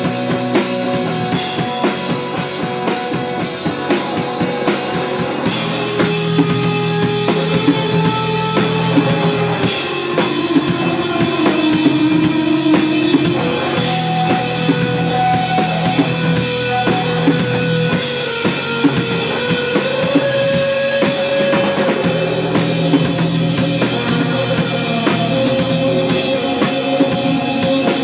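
Live rock band playing an instrumental passage: a drum kit keeps a steady beat with bass drum and snare under held, changing melodic notes, with no singing.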